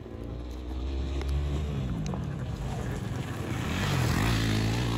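Motorcycle engines running, their pitch rising and falling, with one motorcycle passing close by and getting loudest about four seconds in.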